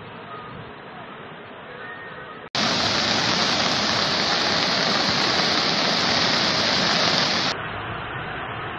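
Muddy floodwater rushing in a flash flood, a steady noisy rush. It jumps abruptly much louder about two and a half seconds in and falls back to a quieter rush about a second before the end.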